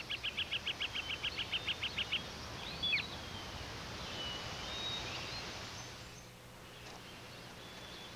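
Songbirds singing: a rapid trill of evenly repeated high notes that stops about two seconds in, then a swooping call and a few short whistled notes over a steady outdoor hiss.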